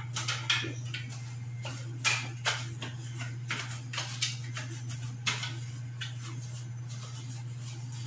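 Sponge scrubbing clear plastic refrigerator parts, with irregular knocks and scrapes of plastic pieces handled against each other and the sink, over a steady low hum.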